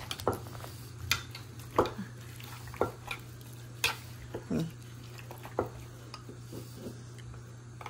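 Wooden pestle and metal spoon knocking and scraping against a clay mortar as a pounded salad is tossed, with irregular short knocks about once a second.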